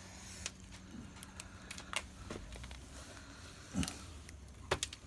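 Hands digging through potting soil for sweet potatoes: soft scattered rustles with small knocks and clicks, a few louder ones near the end.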